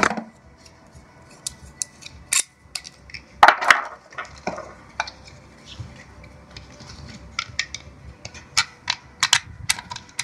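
Plastic clicks and knocks of an action camera and its plastic mount parts being handled and snapped together on a head strap mount: scattered single clicks, with a denser run of quick clicks near the end.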